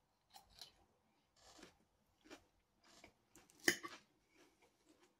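Close chewing of a mouthful of crunchy salad, a run of short wet crunches and mouth sounds. About three and a half seconds in, a sharp clink of a metal fork on the plate is the loudest sound.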